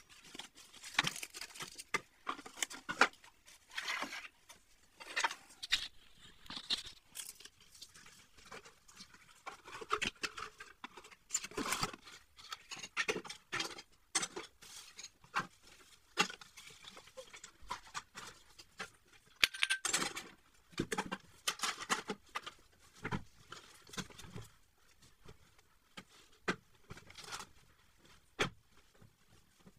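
Household objects handled and set down during kitchen chores: irregular clicks, knocks and brief scraping or wiping sounds from dishes, plastic containers and a pan lid.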